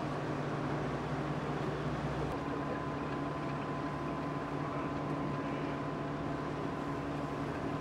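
Boat engine running at a steady drone, with a low hum and the rush of water. About two seconds in, the low hum shifts and a faint, thin, steady tone joins it.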